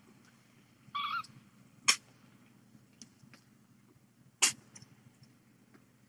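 A very young kitten, its eyes only just opening, gives one short high squeaky mew about a second in. Sharp clicks sound about two seconds in and again near four and a half seconds, with a few fainter ticks between them.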